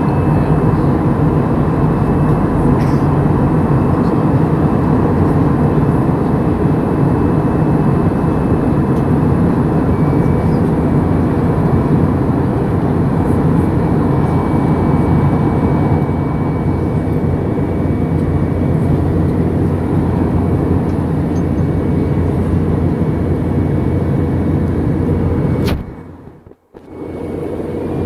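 Jet airliner cabin noise heard at a window seat in flight: a steady, loud drone of engines and airflow with a faint high steady tone in it. About 26 seconds in, the sound drops away for about a second and comes back.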